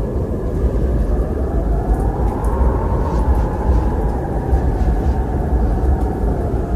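Eerie howling wind: a steady low rumble with a moaning whistle that rises in pitch about two seconds in, then slowly falls again.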